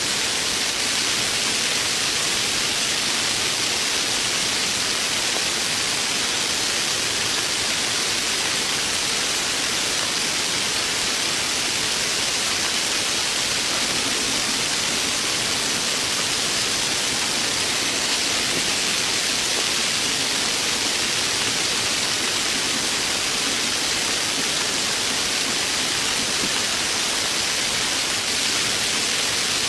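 Heavy rain falling in a steady, unbroken downpour.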